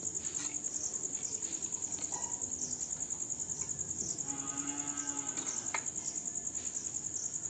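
Crickets chirring in a fast, steady pulse. About four seconds in comes a pitched call lasting about a second.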